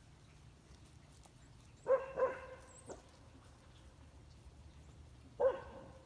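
Black goldendoodle barking in play: two quick barks about two seconds in, then a single bark near the end.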